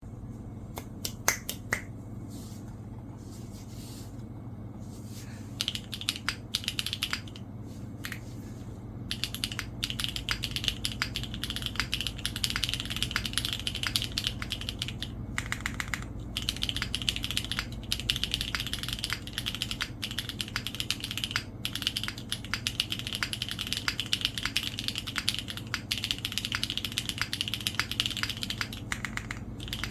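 Neo65 mechanical keyboard with a carbon-fibre plate, gasket-mounted PCB and no foam, with HMX Catmint switches and ABS doubleshot keycaps, being typed on. A few sharp clicks come about a second in, then scattered keystrokes, then steady fast typing from about nine seconds in.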